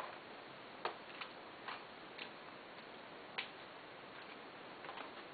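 Light, irregular clicks and taps of laptop parts being handled, with one louder click about three and a half seconds in.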